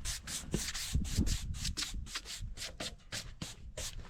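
Quick, rhythmic brushing or rubbing strokes over the face of a freshly sawn spalted maple slab, about four strokes a second. The strokes stop near the end.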